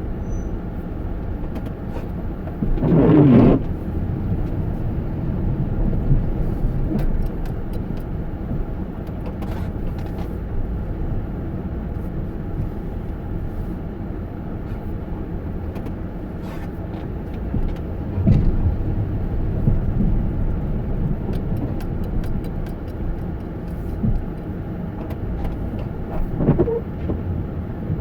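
Steady low rumble of a motor vehicle, with a brief louder sound about three seconds in.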